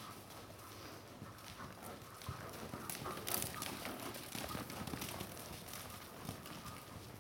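Hoofbeats of a ridden Paint gelding on the sand footing of an indoor arena: an irregular run of soft thuds and clicks as the horse moves around the ring.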